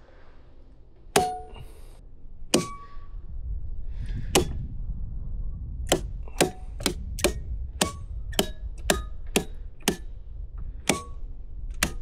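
Circuit breaker switches in a residential electrical panel being flipped one after another, shutting off the main: a series of sharp clicks, each with a short metallic ring. Three come well apart, then a quicker run of about a dozen at roughly two a second.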